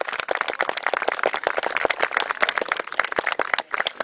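Spectators applauding: dense, irregular clapping.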